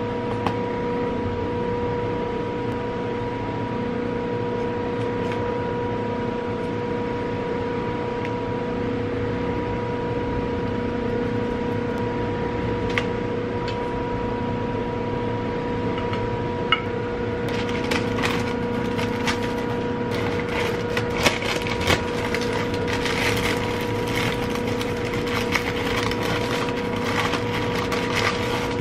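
A steady hum with two constant tones and a few light taps. From about two-thirds of the way in come the dense crackle and rustle of parchment paper being folded and crinkled around a sandwich.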